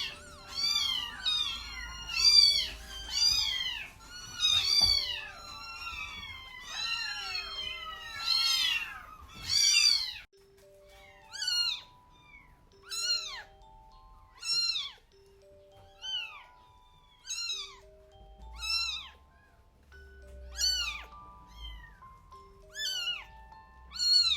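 Week-old kittens crying with high, arched mews: several at once for the first ten seconds, then one kitten mewing about every second and a half. A simple background melody plays under the later cries.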